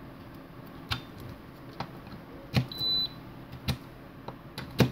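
Hard plastic clicks and knocks as a USB wall charger is plugged into a power strip and a USB tester is pushed into its port, with a short high electronic beep about halfway through.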